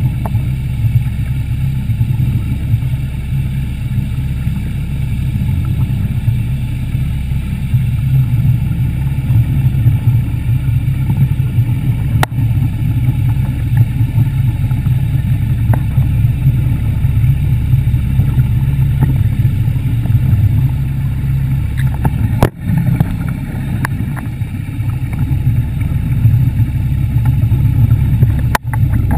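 Underwater scooter running steadily, heard as a loud, even low rumble, with a click and a couple of brief dropouts.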